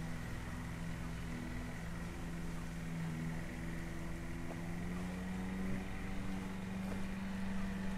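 Steady hum of a running motor, its pitch rising slightly about five seconds in.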